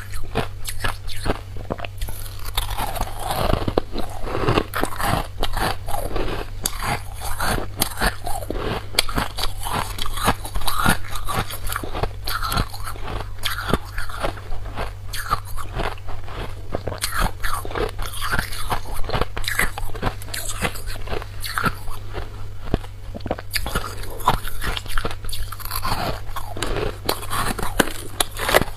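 A mouthful of freezer frost being bitten and chewed: dense, rapid crunching that goes on without a break.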